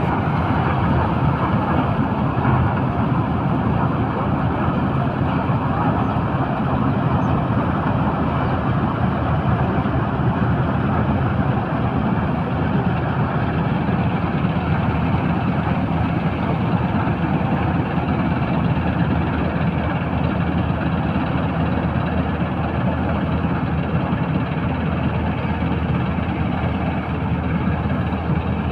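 Preet 987 combine harvester running steadily while harvesting paddy, a loud, even machine noise from the engine and working machinery with no breaks.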